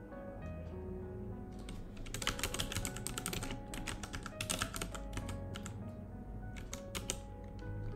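Typing on a computer keyboard in three quick bursts of key clicks, over steady background music.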